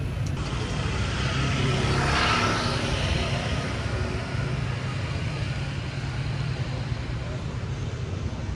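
A motor vehicle engine running steadily, with a louder swell of engine and rushing noise about two seconds in that fades over the next second, as of another vehicle passing.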